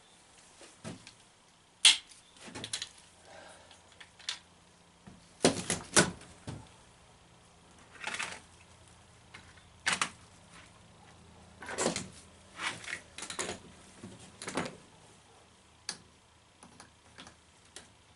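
Irregular clicks, knocks and short scrapes of hand work with parts and fittings in a small cabinet space, the sharpest knocks about two and six seconds in. A faint steady hum sits underneath.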